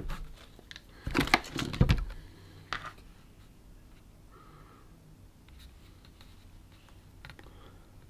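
Small hard objects being handled and set down on a workbench: a few sharp clicks and light rattles, most of them in a cluster a second or so in, then only faint background.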